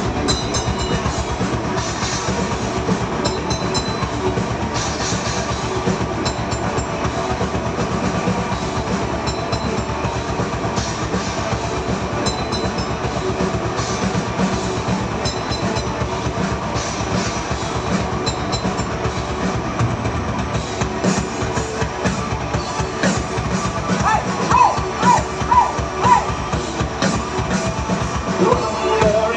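Live metal band playing through a club PA: fast drums, distorted electric guitars and bass.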